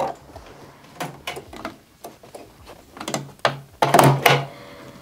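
Clicks and knocks of hands handling a Baby Lock embroidery machine while rethreading it with a new thread colour. The taps come irregularly, with the loudest short cluster about four seconds in.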